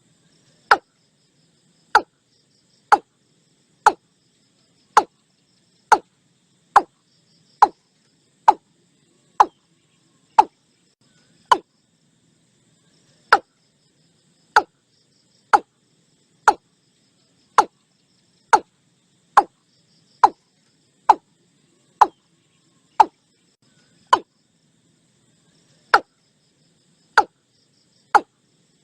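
Watercock (Gallicrex cinerea) calling a steady series of short, sharp single notes, about one a second, each dropping slightly in pitch. The series pauses briefly twice.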